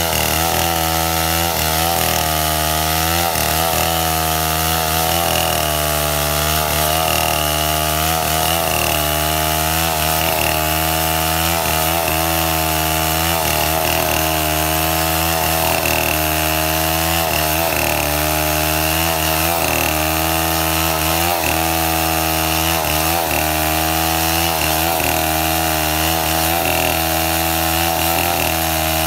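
STIHL 070 two-stroke chainsaw running at full throttle, ripping lengthwise through a coconut trunk to cut boards. Its engine pitch sags slightly and recovers every second or two as the chain bites into the wood.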